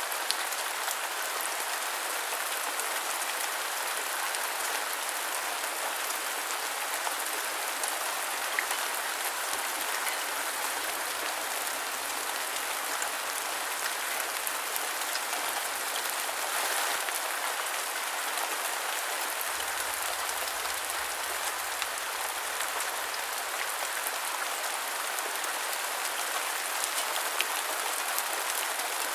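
Steady rain falling and pattering on surfaces, a dense even hiss of many small drop ticks.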